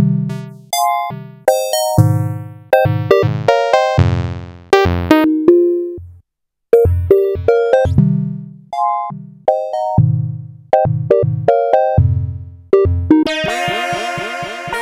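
Modal Electronics Cobalt8M virtual-analogue synthesizer playing a sequenced pattern of short, decaying notes, a bass line under higher notes, with a brief pause about six seconds in. Near the end it changes to a denser, brighter sustained sound.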